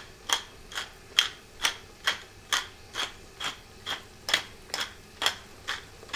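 Pepper mill twisted by hand, grinding black pepper: a regular run of short scraping turns, about two a second.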